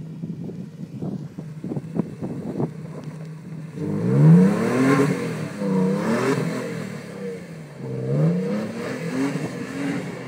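Toyota Tacoma pickup's engine revving up and down several times as the truck spins donuts on snow, starting about four seconds in and loudest at the first rev. Before it, a few scattered light clicks.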